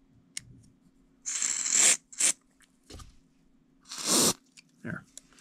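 Aerosol contact cleaner (MG Chemicals ElectroSolve) sprayed through its red extension straw into a small brass generator carburetor part, flushing dirt from its fine passage: a loud hiss of about half a second starting a second and a half in, a short one right after, and another near four seconds.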